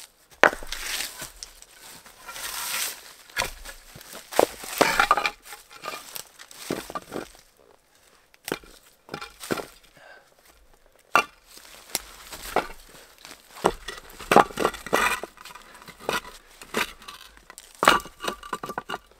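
Stones being set down and knocked against one another as they are fitted into a ring: irregular sharp clacks. Between them come short crunches of dry leaves and pine needles underfoot and under the rocks.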